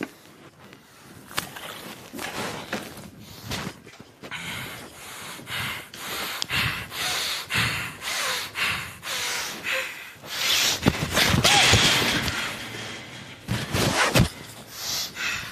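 A man breathing hard, with gasps and wordless vocal noises, amid scuffing footsteps and a few sharp knocks; a louder stretch of heavy breath noise comes about two-thirds of the way in.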